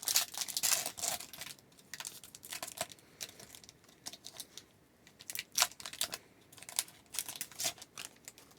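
Foil wrapper of a hockey card pack being torn open and crinkled: a dense crackle in about the first second and a half, then scattered crinkles and rustles.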